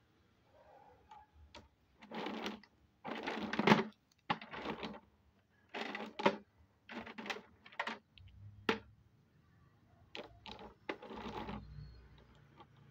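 Lumps of half-roasted edible clay (nakumat) clattering and scraping against each other as a hand stirs through them. The sound comes as about nine short rattling bursts with sharp clicks between.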